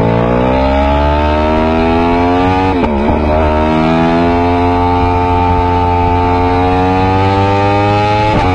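Yamaha R1 crossplane-crank inline-four motorcycle engine pulling hard, its pitch climbing steadily. About three seconds in there is a brief sharp drop in pitch before it climbs again, with another short dip near the end.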